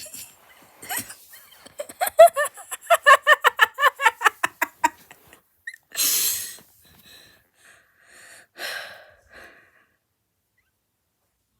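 A person's wheezing laughter: a quick run of high-pitched breathy 'hee' pulses, about five a second for some three seconds. A loud gasping breath comes about six seconds in, and another breathy laugh near nine seconds.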